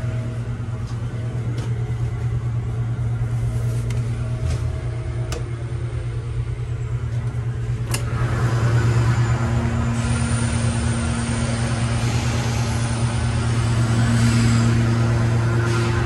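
Steady low drone of heavy industrial plant machinery. About eight seconds in there is a sharp click, after which a louder hiss of noise and a faint higher whine join the drone.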